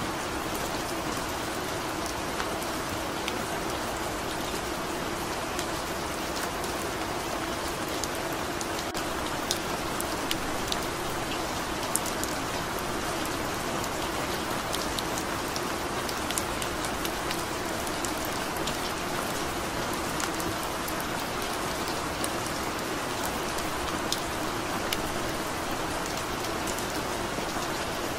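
Steady rain falling on a surface: an even hiss with scattered sharp drop ticks.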